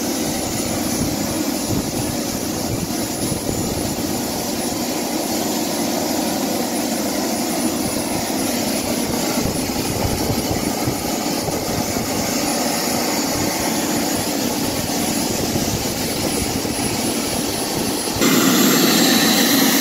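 Model turbine jet engine on an RC buggy running steadily: a continuous rush with a thin high whine over it. About 18 seconds in the sound jumps suddenly louder and the whine drops out.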